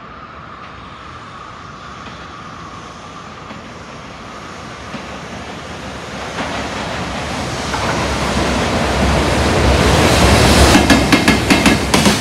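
EF510 electric freight locomotive hauling a container train at speed: its rumble grows steadily louder as it approaches. Near the end its wheels start clacking rapidly over the rail joints.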